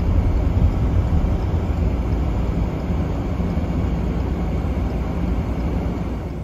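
Car cabin noise while driving slowly: a steady low rumble of engine and tyres on the road, easing slightly near the end.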